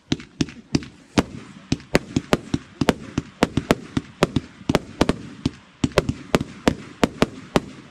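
Blackboxx Miese Liese fan-shaped firework cake (1.4G) firing a rapid volley of sharp bangs, about four shots a second.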